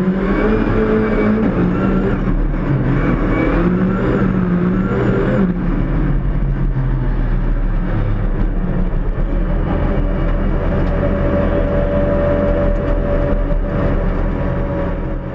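Ford Fiesta ST rally car engine heard from inside the cabin, revving with the pitch rising and falling for the first five seconds or so, then settling to a steadier note.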